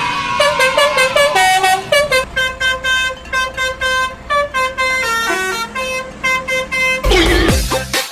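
Basuri 'telolet' multi-tone bus horn playing a tune of short, stepping notes. Near the end a falling swoop and a deep, thumping bass beat of dance music come in.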